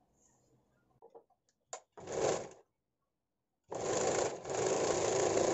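Sewing machine stitching a seam on blouse fabric: a short run about two seconds in, then a longer steady run starting near four seconds, after a few small clicks as the fabric is set under the foot.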